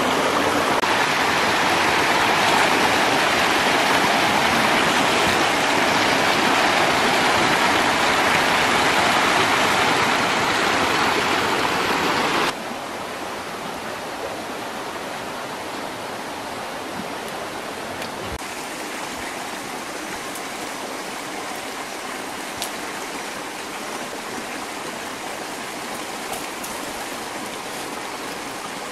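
Steady rush of running stream water, loud for about twelve seconds, then dropping off suddenly to a quieter steady hiss for the rest.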